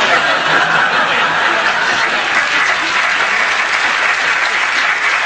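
Audience applauding steadily after a fluffed line.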